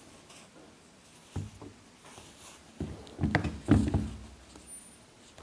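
Handling knocks on a tabletop: a single knock about a second and a half in, then a short flurry of thumps and bumps around three to four seconds in as the boot and camera are handled.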